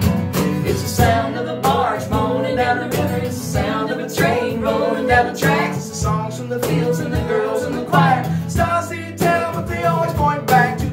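Strummed acoustic guitar with a cajon beat, with voices singing over it.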